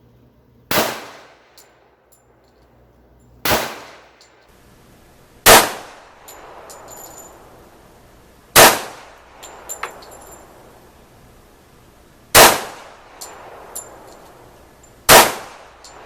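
Six single shots from a Glock 21 .45 ACP pistol, fired slowly about two to four seconds apart; the last four are louder than the first two.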